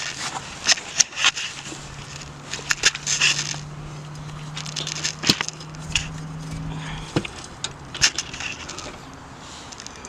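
Metal jack-handle rods clicking, clinking and scraping as they are worked into the hook point under a pickup truck, with scuffing and crunching from a person lying on the ground beneath it. The noises come in uneven clusters of sharp clicks and scrapes.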